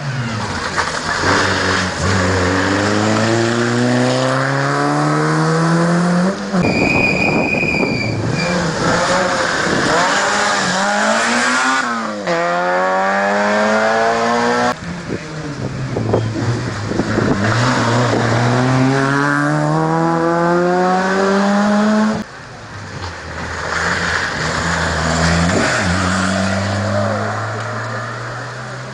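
Rally car engine accelerating hard through the gears, its pitch climbing and then dropping at each upshift, several times over. A brief high-pitched squeal about seven seconds in.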